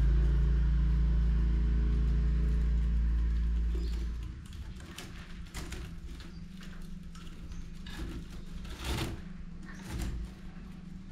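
A deep low rumble fills the first four seconds, then fades. After that, the woven rattan of a Dayak keba basket carrier creaks and rustles as it is handled, with scattered clicks and one louder rustle about nine seconds in.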